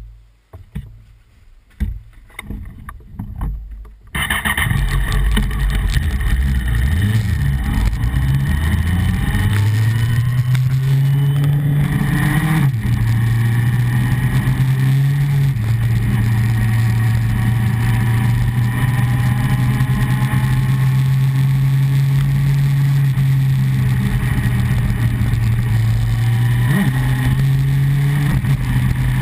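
A few handling knocks, then the Honda CBR954RR Fireblade's inline-four engine and wind noise come in loud, recorded from a camera mounted on the motorcycle. The engine note rises and drops back with upshifts, then settles into a steady cruising drone.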